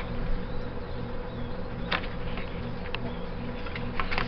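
A steady low buzzing hum with a few light clicks and rustles from hands working the Flexwatt heat tape close to the microphone.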